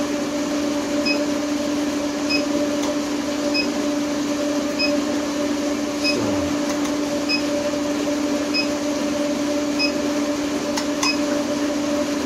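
Steady hum of a TIG water-cooler pump and the induction heater's cooling fan, with a short high beep about every 1.2 seconds. A few sharp clicks come as the induction forge's hand trigger switches it on and off.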